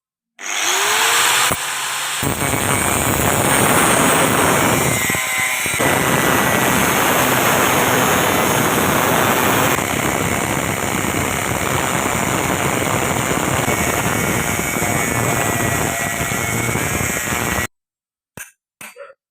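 A machine running steadily and loudly with a dense, hiss-like noise, stopping abruptly near the end, followed by a few short clicks.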